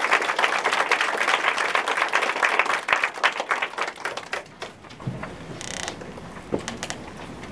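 Audience applauding, a dense patter of many hands clapping that dies away about four and a half seconds in, followed by a few scattered clicks and soft thumps.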